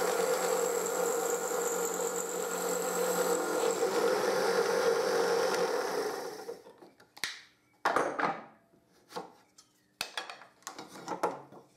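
Bench drill press running, its bit boring into the end of a long wooden rod: a steady motor whine with the rasp of the cutting. It stops about six and a half seconds in, followed by scattered knocks and clacks of wooden parts being handled.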